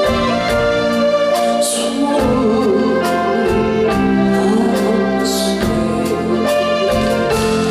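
Live band accompaniment to a Korean ballad, held chords under a wavering lead melody with a steady beat, near the song's close.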